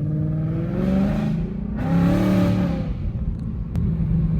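Ford Mustang GT's 5.0 Coyote V8, breathing through long-tube headers and an X-pipe, accelerating hard. The engine note rises, drops briefly about a second and a half in as at a gear change, then climbs again and holds.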